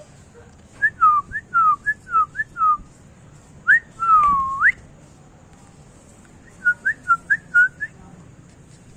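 A person whistling to call puppies: a quick run of short chirps sliding up and down, a long swooping whistle that dips and rises, then another run of chirps.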